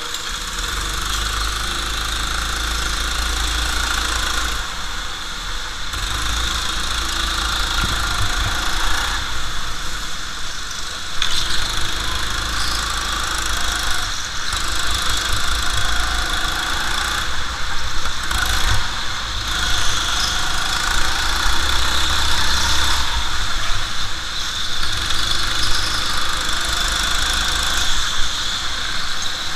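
Go-kart engine running, heard on board the kart as it is driven round an indoor track. Its loudness swells and dips every few seconds as the throttle is worked.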